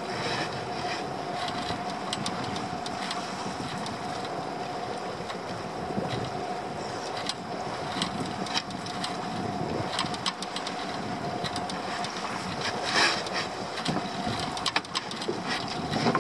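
Small outboard motor running steadily at trolling speed, a constant hum under wind and sea noise, with scattered light clicks.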